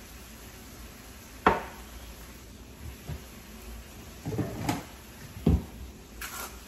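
Kitchen handling sounds of seasoning containers being set down and picked up on a countertop: one sharp knock about a second and a half in, a few softer clatters a little past the middle, and another short knock soon after.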